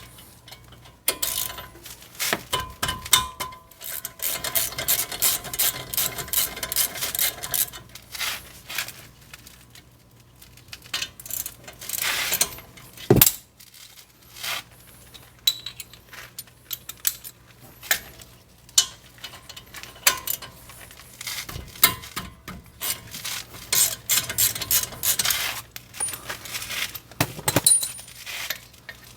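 Metal hand tools clinking and clattering against each other and on metal, with quick runs of clicks.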